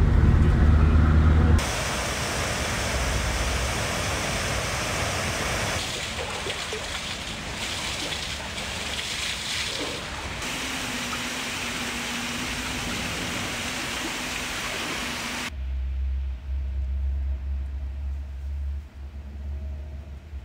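Fast-flowing stream rushing over rocks: a steady, full hiss of water. It is preceded by a car's engine and road hum heard from inside the cabin, which cuts off about a second and a half in. Near the end the water gives way to a quieter low hum.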